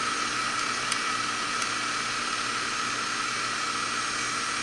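Heat pump outdoor unit running steadily in heating mode, its condenser fan and compressor giving a steady hiss with a faint hum. A couple of faint ticks come about one and one and a half seconds in.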